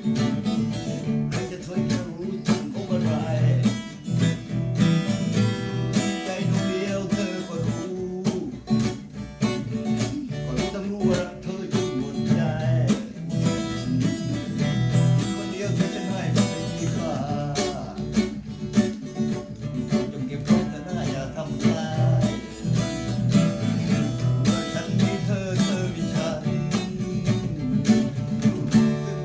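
Acoustic guitar strummed in a quick, even rhythm, with a voice singing along.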